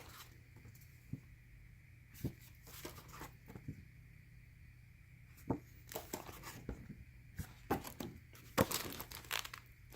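Paper cards and packaging being handled: scattered light taps and short rustles, sparse at first and busier over the last few seconds.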